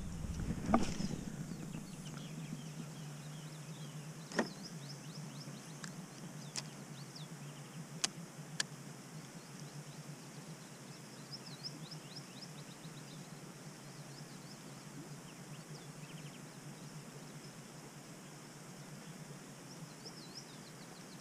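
Quiet lakeside ambience: birds chirping faintly in short high clusters over a steady low hum, with a brief louder rush about a second in and a few sharp isolated clicks.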